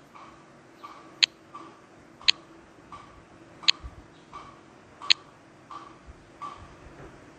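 Tap clicks from a phone avatar-maker app as options are selected. There are four sharp, loud clicks about a second apart, with softer, duller clicks between them.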